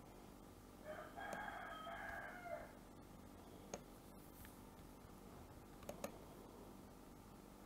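A single drawn-out call, about a second and a half long, then a few sharp clicks of a computer mouse.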